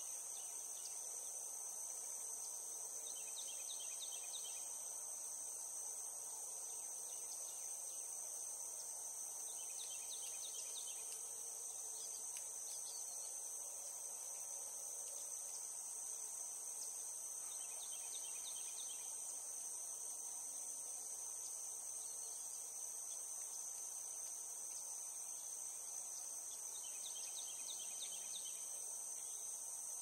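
Continuous high-pitched drone of cicadas, steady throughout. Over it, a bird gives a short burst of quick repeated notes about every eight seconds, four times in all.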